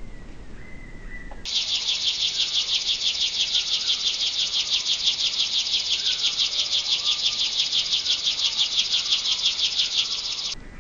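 Insect's high, rapidly pulsing buzz, starting abruptly about a second and a half in and cutting off abruptly near the end.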